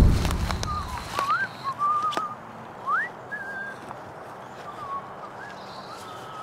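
A low thump right at the start, then a person whistling a short wavering run of notes, one sliding sharply upward about three seconds in. A few fainter, shorter whistles follow near the end.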